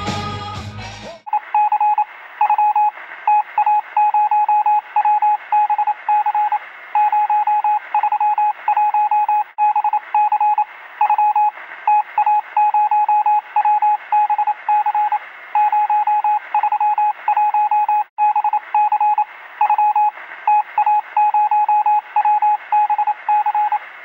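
Music breaks off about a second in. It gives way to Morse-code-style beeping: one steady tone switched on and off in short and long pulses in irregular groups, heard as if over a narrow-band radio with a faint hiss.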